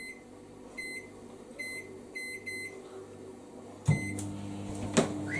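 Microwave oven keypad beeping as the cooking time is entered, several short high beeps. About four seconds in, a final beep and the oven starts running with a steady hum. A short knock comes near the end.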